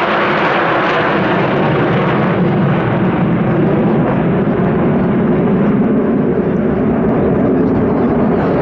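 Steady jet noise from a close formation of six Sukhoi Su-35S fighters flying over, their AL-41F1S afterburning turbofans heard together. The sound turns duller as the formation draws away.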